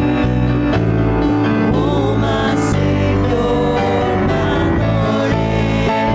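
Live church worship band playing a slow praise song, with keyboard, acoustic guitar, congas and drum kit, and voices singing over the music.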